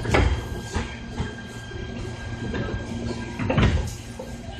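Seoul Subway Line 5 electric train, with a Dawinsys IGBT VVVF inverter, running near a station stop. A steady rumble carries a thin steady whine, and several knocks and thuds come through, the loudest about three and a half seconds in.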